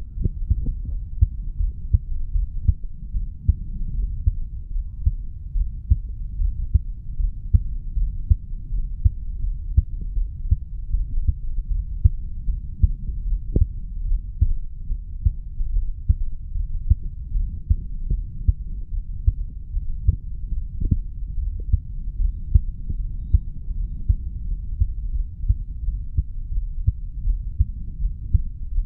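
A 35-year-old man's heartbeat, recorded at the mitral valve area of the chest after weight training. It is a regular run of low thumps, with a low rumble between beats.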